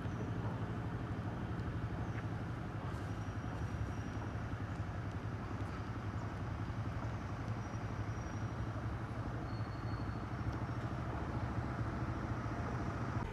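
A vehicle engine idling steadily: a low, even hum.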